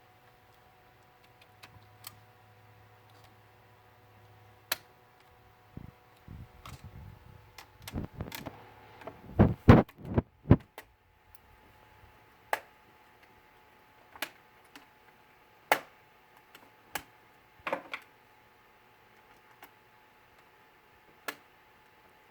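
Scattered sharp clicks and plastic knocks from laptop parts being handled and fitted back together, with a cluster of louder knocks about nine to eleven seconds in.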